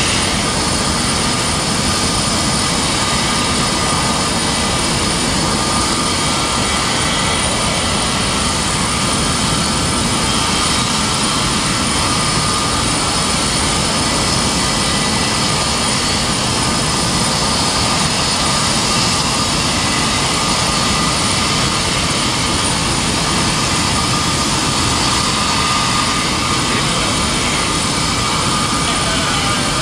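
Jet aircraft engines running steadily: a continuous rushing noise with a steady high turbine whine, unchanging in level.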